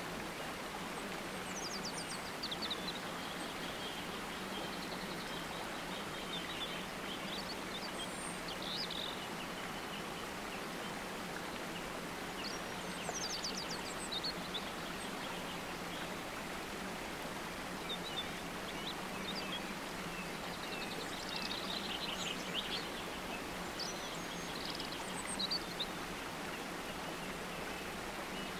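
Background nature ambience: small birds chirping and twittering at scattered moments over a constant hiss, with a low steady hum beneath.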